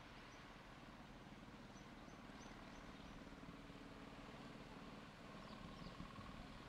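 Near silence: faint ambience with a low steady hum and a few faint series of short, high bird chirps.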